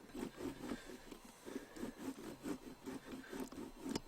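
A block of Gruyère cheese being shredded on a box grater: quiet, rhythmic rasping strokes, about three a second.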